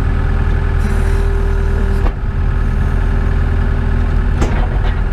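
Skid steer engine running steadily at a low drone, with a sharp click about two seconds in and another near the end.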